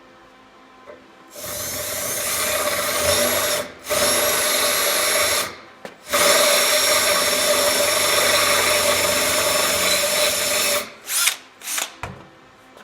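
Electric drill boring out a broken 5/16-inch bolt so the hole can be re-tapped. It runs in three spells, each time spinning up with a rising whine, then gives a few short trigger blips near the end.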